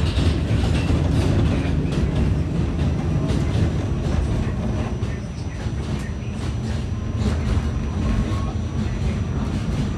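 Inside an R46 subway car running at speed: a steady low rumble with irregular clicks of the wheels over rail joints, and a faint high steady whine from about halfway through.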